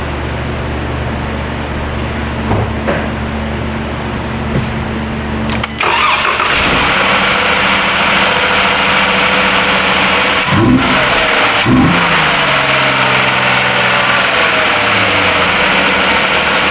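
2012 Jeep Grand Cherokee's 3.6-litre V6 starting about six seconds in, after a steady hum, and then running. It is revved briefly twice and settles back to idle. The engine runs now that the failed, water-filled fuel pump relay has been replaced.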